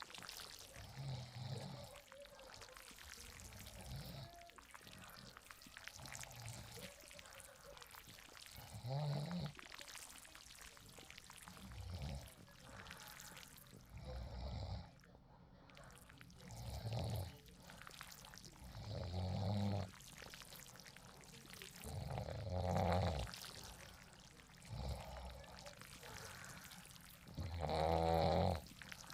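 A person snoring in deep sleep: a snore every two to three seconds, the loudest and most rattling one near the end, over a steady hiss.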